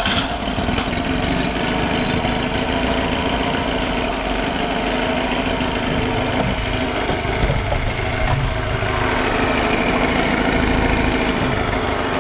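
1980s Honda 10 hp twin-cylinder four-stroke outboard motor starting on a pull of the recoil starter cord, then running steadily with its carburetor freshly cleaned.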